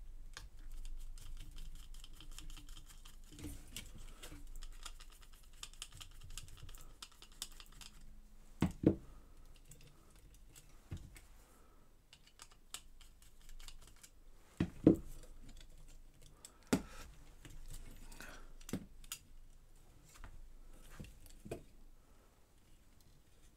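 Hand screwdriver working small screws out of an iMac G3 CRT neck board assembly, with its metal parts and cable connectors being handled: a run of light clicks and scrapes, with two sharper knocks, one about a third of the way through and one just past the middle.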